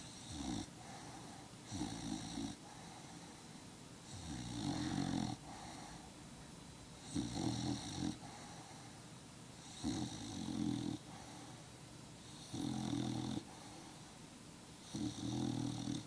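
Bulldog snoring while asleep, a short rough snore about every two and a half to three seconds, seven in all.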